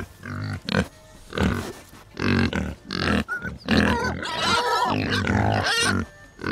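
Pigs grunting and oinking in a series of short calls. About halfway through they run into a longer, higher-pitched stretch of calling.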